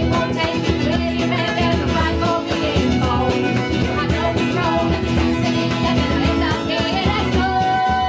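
A live folk-rock band playing: fiddle, electric and acoustic guitars and keyboard, with several voices singing.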